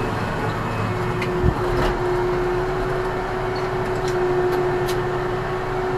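Ursus C-392 tractor's diesel engine running steadily under ploughing load, heard from inside the cab, with a steady tone over the engine noise. A single knock about a second and a half in.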